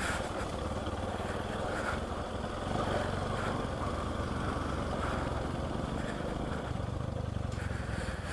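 Motorcycle engine running steadily at low revs, the sound level changing only a little.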